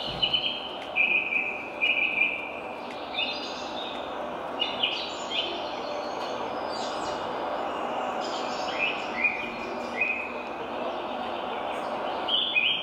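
Forest birdsong from a nature video: repeated chirps and short falling whistles over a steady background hiss, played to demonstrate the TV's Dolby Audio sound.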